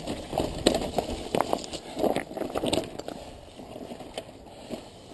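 Mountain bike creeping over loose rock: tyres crunching on stones and the bike rattling with sharp, irregular knocks. It dies down after about three seconds as the bike comes to a stop.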